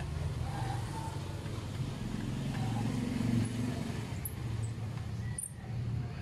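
Low, steady rumble of a motor vehicle's engine running, with a few faint sharp ticks near the end.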